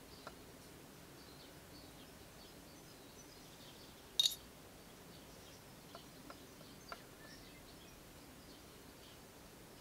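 Hollow plastic body halves of a 1967 Talking Barbie handled on a cutting mat: a few light clicks and one sharper plastic clack about four seconds in. Faint bird chirps run in the background.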